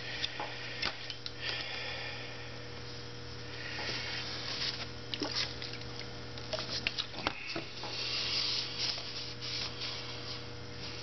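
Steady electrical mains hum, with rustling and a few light clicks as small carburettor parts are handled on the workbench.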